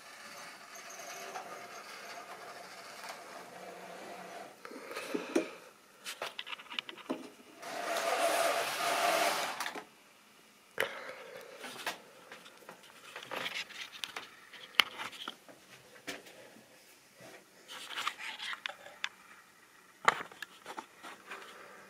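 Model train running on the layout's track: a steady small electric motor whirr with wheel noise, swelling much louder for about two seconds midway. Scattered sharp clicks and knocks follow.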